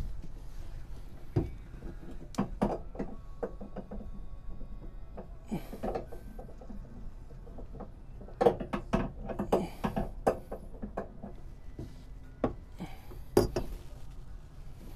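Handling noises of a spin-on water-separator fuel filter being fitted onto its mount: scattered clicks, knocks and light scrapes of the metal canister against the mount and the fiberglass compartment, in irregular clusters.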